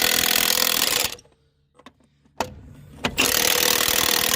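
Milwaukee 2863-20 half-inch cordless impact wrench hammering trailer wheel lug nuts loose, in two runs: one stops about a second in, the next starts about three seconds in. A click or two falls in the pause between them.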